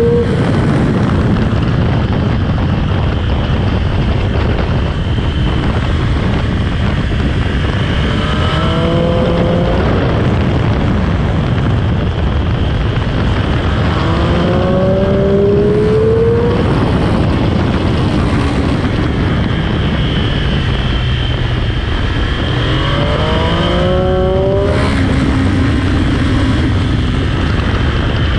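Sport motorcycle engine on stock exhaust, ridden hard on a race track over a steady rush of wind and road noise. Its pitch climbs under acceleration three times, about 8, 15 and 23 seconds in.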